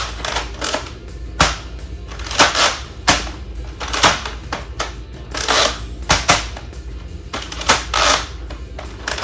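Nerf Elite 2.0 Flip 32 spring dart blaster being primed and fired over and over: sharp plastic clicks and snaps about once a second, with short rasping priming strokes between them.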